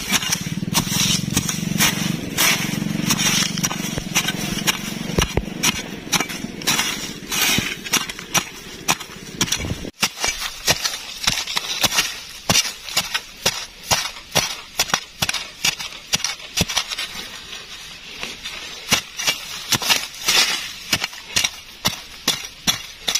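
A hand digging tool striking and scraping into sandy soil, a run of short sharp chops, roughly two a second for most of the stretch. A low background rumble drops out suddenly about ten seconds in.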